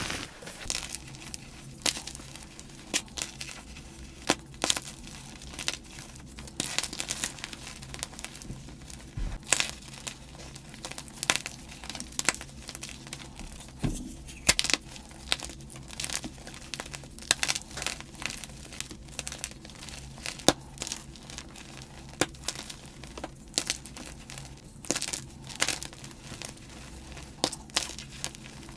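Blocks of gym chalk being crushed and crumbled by hand: a dense run of irregular, crisp crunches and crackles.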